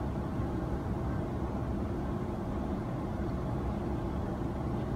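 Steady low roar of an airliner cabin in flight, the engines and rushing air heard from a window seat, with a faint steady hum in it.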